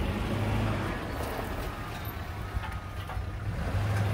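1996 Geo Tracker's four-cylinder engine running steadily as the small 4x4 moves off in gear. The clutch now engages after the clutch cable was replaced and tightened.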